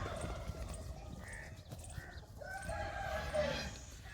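A rooster crowing once, a drawn-out call starting about two and a half seconds in, with a couple of shorter, higher calls a little before it.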